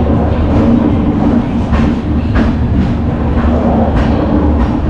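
Passenger coach rolling slowly out of the station: a steady low rumble of wheels on the track with a few sharp clacks over rail joints.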